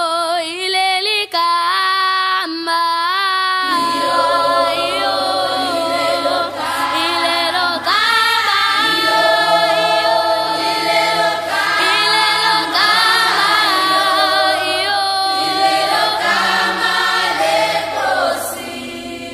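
A single voice sings a melody alone, then about four seconds in a choir joins, singing in harmony over steady low held notes. The singing drops away near the end.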